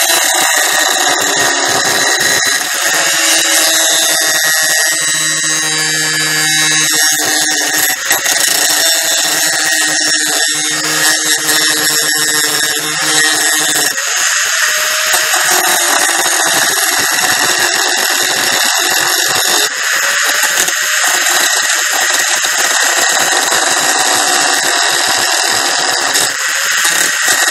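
Handheld electric angle grinder cutting into a metal plate, its motor whine and the hiss and grind of the disc biting the metal running continuously.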